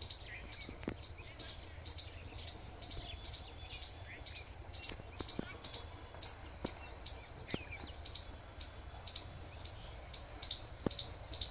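Outdoor ambience made up of a rapid, even ticking, about three ticks a second, with a few short bird chirps and an occasional click over a steady low rumble.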